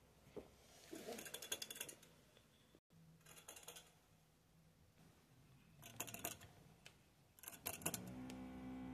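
Faint, intermittent crinkling and rustling of a plastic bag of dried meadow hay being handled, in a few short spells. Near the end, a few clicks and a short steady low tone.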